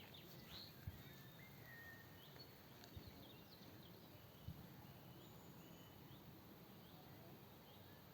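Faint outdoor ambience: small birds chirping and calling now and then over a low steady hiss, with a few soft low thumps.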